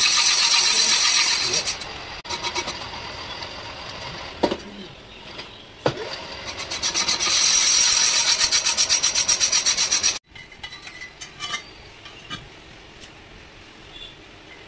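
A lathe machining the inside of a spinning motorcycle wheel's brake drum: two stretches of loud, harsh rasping with a fast flutter, one at the start and one from about seven to ten seconds in, with a few sharp knocks between. After a sudden cut about ten seconds in, only faint background noise remains.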